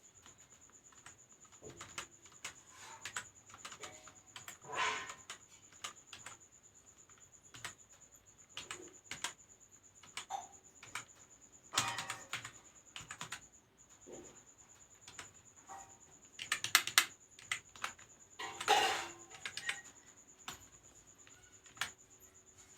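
Typing on a computer keyboard: irregular keystrokes in short runs separated by pauses, with several louder runs of quick clicks.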